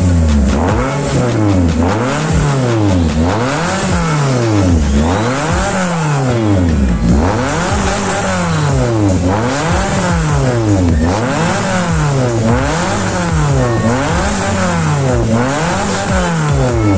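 Suzuki Swift with an aftermarket exhaust and racing air filter, revved again and again with the car standing still: the engine note rises and falls about ten times, roughly every second and a half, heard at the exhaust tip.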